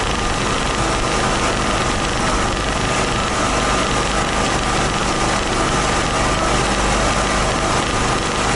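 Engine of a Toro 6000-series zero-turn mower running steadily as the mower is driven along, with a thin, steady whine over the engine.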